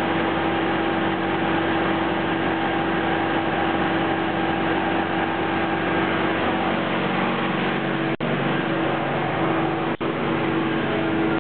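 Isuzu D-Max engine running steadily under a heavy alternator load, with a constant hum. The sound cuts out very briefly twice, about 8 and 10 seconds in.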